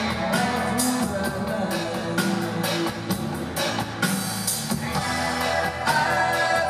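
Live band music with electric guitars, a bass line and a drum kit keeping a steady beat.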